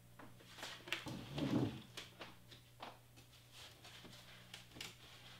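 Scattered light clicks and rustles of handling and moving things, with a louder, lower noise about a second and a half in, over a steady low electrical hum.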